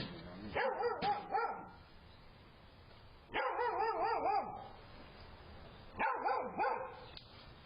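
A dog barking in three short runs of quick barks, separated by pauses of about a second and a half, heard through a doorbell camera's narrow-band microphone.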